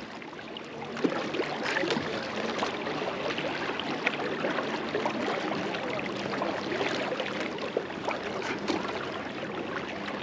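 Swift river water rushing steadily close to the microphone, with scattered small splashes and ticks.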